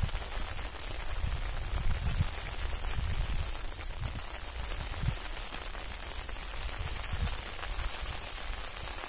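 Fairly heavy rain falling steadily, heard as an even hiss, with irregular low rumbles underneath.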